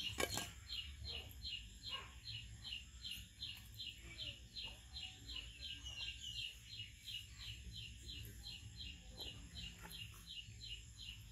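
A bird calling over and over, about three short falling chirps a second, with a steady high drone behind. A single sharp knock sounds just after the start.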